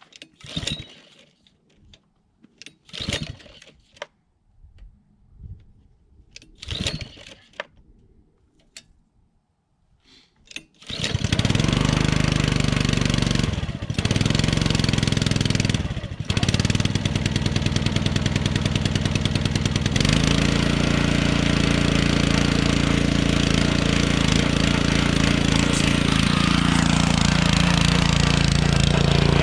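Small gas engine on a log splitter starting: a few short, sharp noises, then the engine catches about 11 seconds in and runs loudly, faltering twice in the next few seconds before settling into a steady run whose pitch shifts at about 20 seconds.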